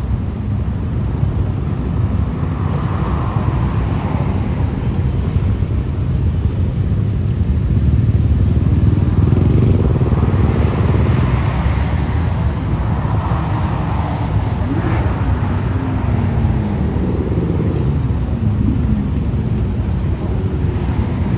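Motorcycle engines revving as bikes pull away one after another, over a steady rumble of highway traffic. In the second half the engine notes rise and fall in pitch several times.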